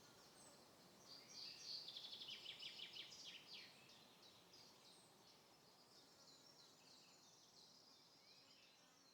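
Faint birdsong: high chirps with a quick trill from about one to four seconds in, then softer scattered calls.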